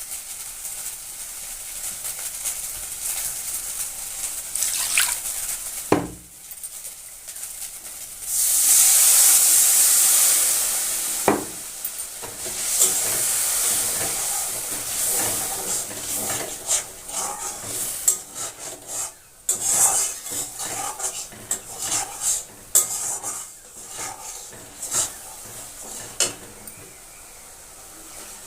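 Food frying in a pan with a steady sizzle and a spatula stirring and scraping against the pan. There are sharp knocks about 6 and 11 seconds in, and a loud surge of sizzling from about 8 to 11 seconds. Many small clatters of the utensil follow.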